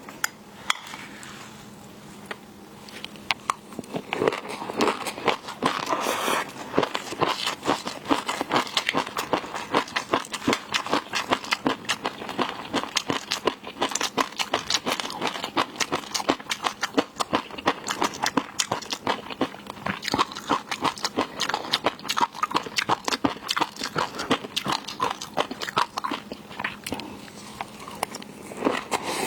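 Close-miked eating: rapid, wet crunching and chewing clicks of seafood being bitten and chewed, starting about three seconds in and running continuously.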